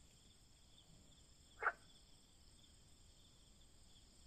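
Faint, steady chorus of insects trilling, with one brief, sharp sound about a second and a half in.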